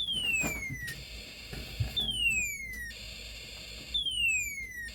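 Snap Circuits space war integrated circuit sounding through its small speaker: an electronic tone that falls steeply in pitch over about a second, three times at two-second intervals, with a steady high tone in between.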